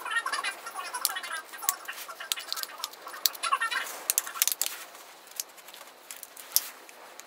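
Thin stainless steel foil crinkling and clicking in the hands as it is folded into an envelope around a knife blade, the wrap that keeps oxygen off the steel during hardening. A quick run of sharp crackles, with high chirpy squeaks in the first few seconds, thinning out over the last couple of seconds.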